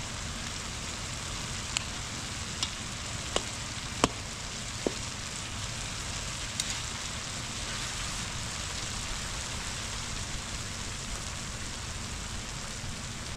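Steady sizzling hiss of food cooking, over a low rumble, with six short sharp clinks or knocks in the first seven seconds, the loudest about four seconds in.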